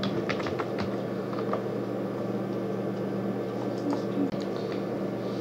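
Computer keyboard keystrokes: a quick run of about half a dozen clicks in the first second and a half, then a few more near the end, over a steady low hum.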